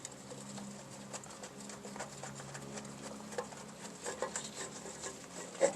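Small scattered metal clicks and taps of hand work at a drum brake backing plate as the brake line fitting is started into a new wheel cylinder, over a faint steady low hum.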